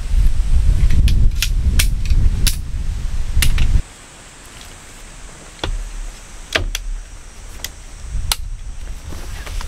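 Sharp metal clicks and clacks as the poles of a folding camp cot's frame are handled and fitted together. Wind buffets the microphone with a heavy rumble for the first few seconds, then stops abruptly about four seconds in.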